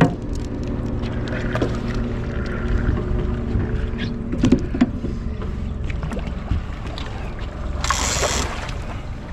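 Boat motor running with a steady low hum, with a few knocks against the boat and a short burst of hiss about eight seconds in.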